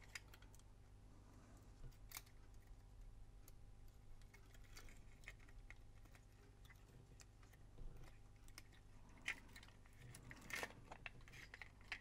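Near silence with faint, scattered clicks and taps of small camcorder parts and screws being handled during disassembly, over a low steady hum.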